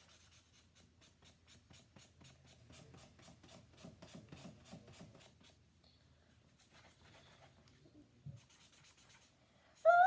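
Felt-tip marker rubbing on paper in quick back-and-forth colouring strokes, about four a second, that fade out about halfway through. Near the end a child's voice comes in with a high sung 'ah' that slides upward.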